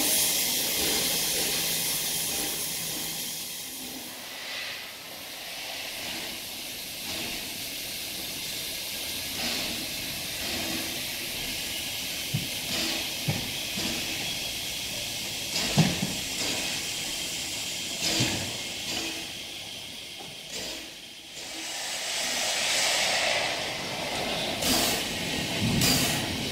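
Steam hissing from steam locomotives standing under steam, with a few short knocks and clanks in the middle and near the end.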